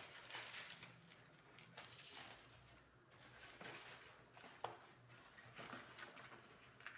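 Faint rustling with a few light clicks: dry herbs and seeds being handled and spooned out, with one sharper tick about two thirds of the way through.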